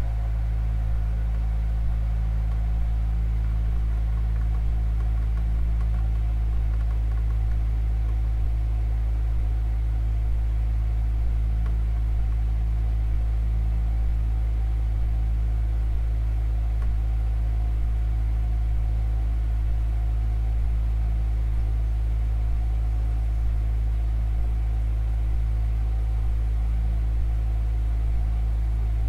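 Steady, loud low drone: a deep rumble with several held tones above it, unchanging throughout. A couple of higher tones drop away right at the start.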